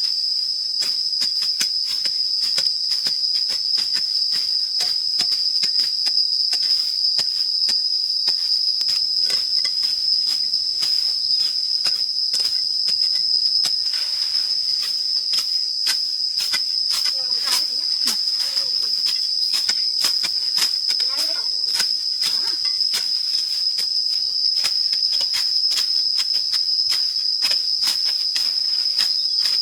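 Loud, steady insect chorus holding one shrill high pitch without a break, with many short sharp clicks scattered over it.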